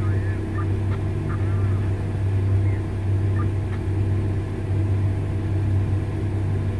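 Steady low engine rumble heard from inside a vehicle cab, with a Liebherr 9100 mining excavator loading a Komatsu HD785-7 haul truck just ahead. A few faint short high squeaks sound in the first half.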